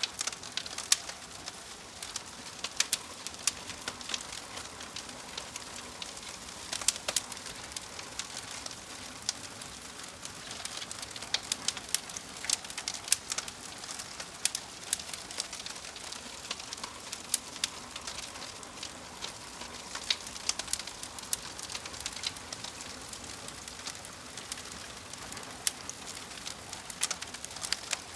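Log fire crackling: irregular sharp pops and snaps over a steady soft hiss.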